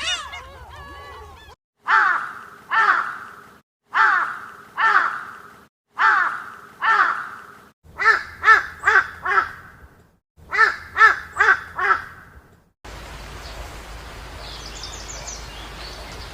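A crow cawing: three pairs of harsh caws, then two quicker runs of four. The first second or so holds the end of goose honking, and about 13 s in a different recording of steady background noise takes over, with faint high chirps.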